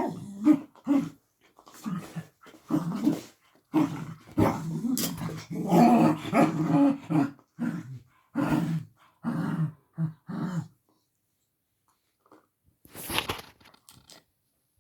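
A dog barking and grumbling in a rapid string of short, low bursts, frustrated at a toy it cannot reach. The bursts stop after about ten and a half seconds, and a brief scuffling noise follows a couple of seconds later.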